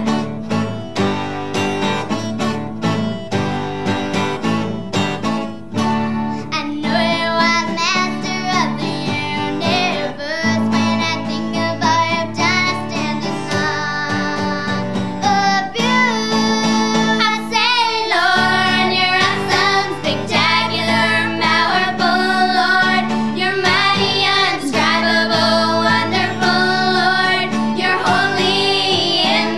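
Girls singing a song together with a strummed acoustic guitar. The guitar strums alone at first, and the voices come in about six seconds in.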